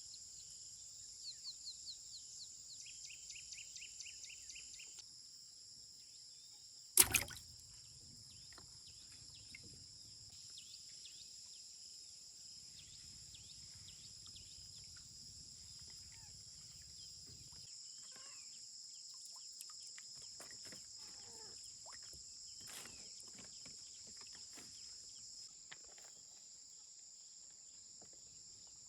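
Crickets and other insects keep up a faint, steady high-pitched chorus, with a quick run of chirps in the first few seconds. A single sharp knock sounds about seven seconds in.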